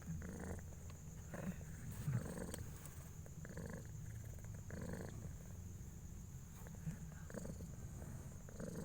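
Domestic cat purring steadily during labour, as a kitten is being born.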